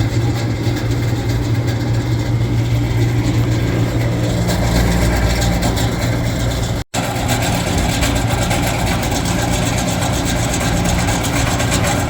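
Refrigeration equipment running, most likely the system's compressor and fan while refrigerant is added: a loud, steady machine hum with a constant low drone. It breaks off for an instant about seven seconds in.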